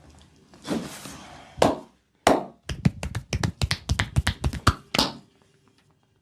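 Percussive massage strikes on the body: a brush of rubbing and a single sharp click, then a quick run of a dozen or so sharp taps, about five a second, ending on one harder strike.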